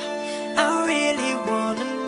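Background music with held chords and a melody line that glides in pitch.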